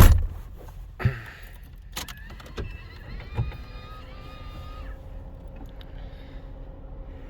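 A car door shuts with a loud knock, followed by a few smaller knocks and clicks from inside the car. Then come brief electric whining tones and a faint steady hum as the ignition is switched on, just before the engine is cranked.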